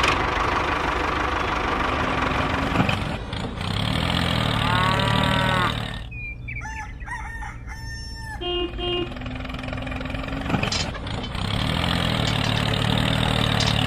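Tractor engine running steadily, with a rooster crowing once about four to five seconds in. The engine sound dips for a couple of seconds in the middle before it returns.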